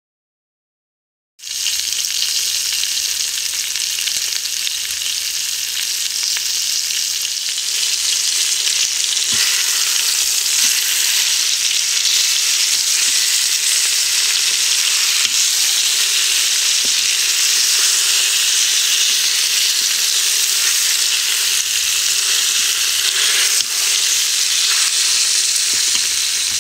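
Flour-dredged chicken thighs sizzling steadily in hot oil in an Instant Pot's stainless inner pot on sauté, with a few light clicks of metal tongs as the pieces are turned. The sizzle starts abruptly after about a second and a half of silence.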